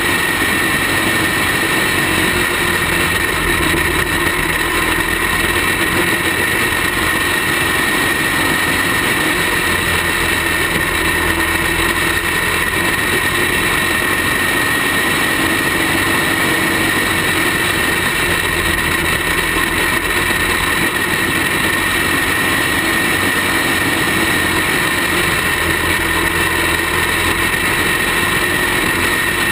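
A small racing-kart engine heard from onboard, running loud and steady at race speed, its low note swelling and easing a little through the laps.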